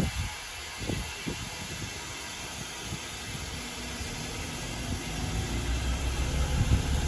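Steady hiss of steam from a 7F steam locomotive standing while being prepared for its first run, over a low rumble that grows a little louder in the second half.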